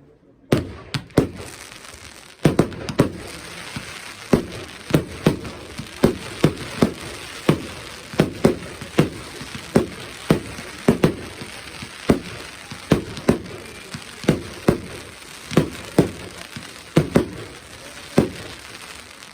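Fireworks going off in quick succession: sharp bangs about two a second over a constant crackling hiss.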